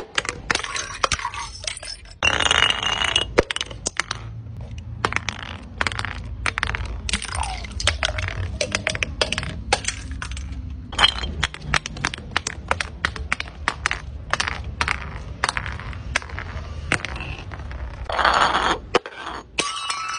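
Hard objects knocking and clattering as they tumble down stone steps: a long series of sharp separate impacts. Near the end comes a dense burst of rapid pattering as a mass of small coloured balls bounces down the steps.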